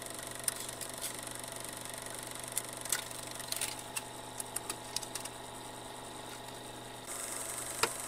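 Film projector sound effect: a steady mechanical whir and hiss with irregular crackles and pops, the loudest pop near the end.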